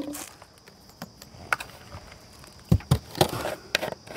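Plastic containers being handled: a foam cannon set down on concrete and a plastic shampoo can picked up. It gives a few separate knocks and clunks, the heaviest being two low thumps in quick succession just under three seconds in.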